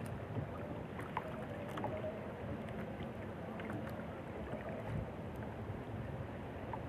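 Steady wind and water noise around a small fishing boat at sea, with a few faint clicks.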